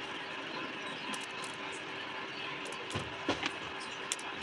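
Fine-mesh metal sieve shaken and tapped by hand, gram flour (besan) sifting through it with a steady light rattle, and a few sharp taps about three seconds in and once more near the end.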